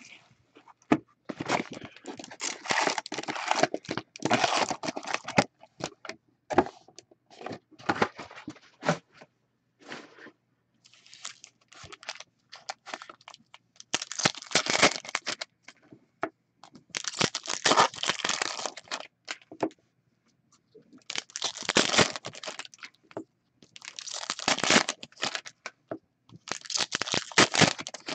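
Plastic wrapping of a box of hockey cards and its packs being torn open and crinkled, in bursts a few seconds long with short pauses between.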